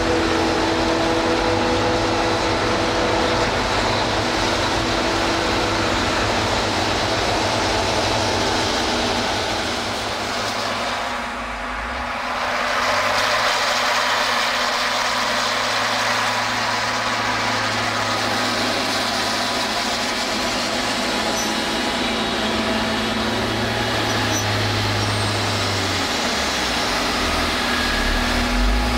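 Heavy farm machinery engines running steadily: a tractor and forage harvester chopping maize. About twelve seconds in the sound changes to a single big tractor engine with a steady low drone, the Ford FW 60 working the silage clamp.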